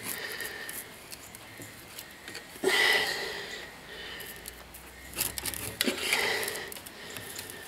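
A flat screwdriver prying and scraping at the crimped metal seam between a car heater core's metal core and its plastic end tank, with light metallic scraping and clicking. There is a louder scrape about three seconds in and another burst of scraping around five to six seconds.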